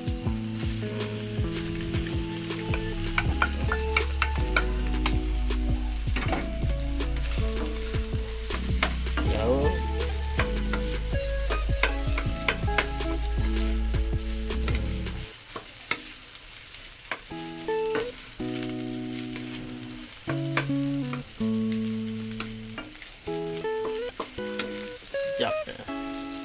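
Cooked rice sizzling as it is stir-fried in a non-stick wok, with a wooden spatula scraping and tossing it in frequent clicks and scrapes. A background tune of held notes plays underneath; its deep bass notes drop out about halfway through.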